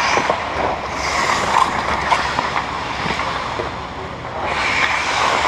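Ice hockey skates scraping and gliding on rink ice as a steady hiss, with a few sharp clacks of sticks or puck. The sound dips slightly about four seconds in, then picks up as play comes toward the net.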